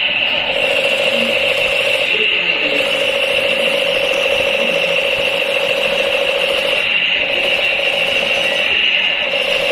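Battery-operated toy machine gun playing its electronic firing sound effect: a steady, loud, rattling buzz held on one high pitch.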